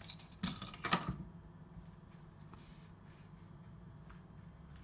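A quick run of light clicks and taps from kitchen things being handled on a counter about half a second to a second in, then only a faint steady room hum.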